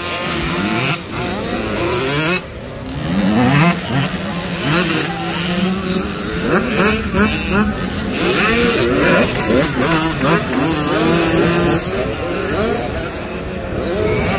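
Two-stroke youth motocross bike engines, the KTM 85 among them, revving hard through the corners, the pitch climbing and dropping over and over as the throttle opens and closes.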